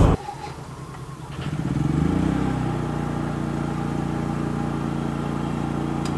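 An engine starts about a second and a half in, rising in pitch briefly before settling into a steady, even run.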